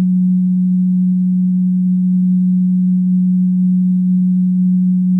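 Electronic emergency-alert alarm tone: one steady, low, unwavering tone held at a constant loudness that cuts off suddenly about five seconds in.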